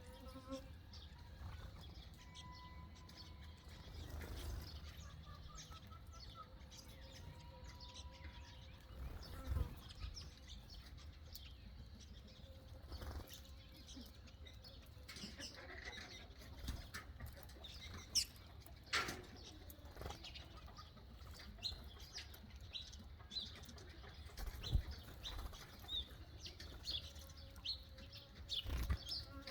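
Birds chirping and calling, with many short, sharp chirps scattered irregularly and a few brief held whistled notes.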